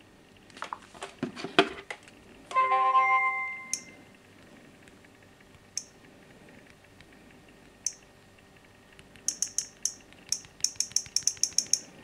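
Knocks from handling a smartphone, then a short chime, then the Samsung Galaxy A3's high touch-screen tap clicks: a few single taps, then a rapid run of about a dozen near the end as the Android version entry is tapped repeatedly to open the Lollipop easter egg.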